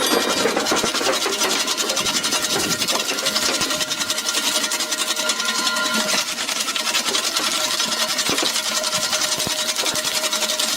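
A machine running with a steady, rapid rattling clatter.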